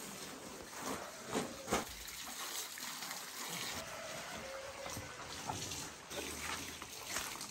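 Water trickling and splashing, with a couple of sharp knocks about a second and a half in and scattered smaller knocks and scuffs.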